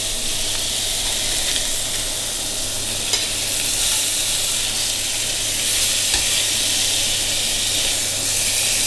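Beef tenderloin steaks sizzling steadily in a hot stainless-steel frying pan as they are seared on their sides, with a couple of light clicks of metal tongs against the pan.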